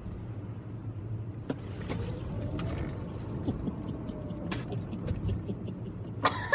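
Steady low rumble of road and engine noise inside a moving car's cabin, with a few small clicks and knocks. About six seconds in comes a sudden loud burst of a woman's voice.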